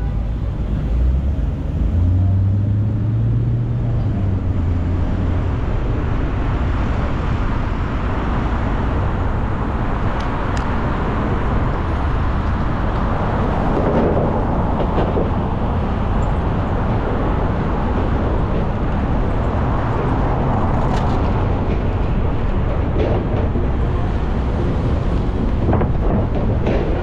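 A car driving: steady road and tyre noise with a low engine rumble underneath.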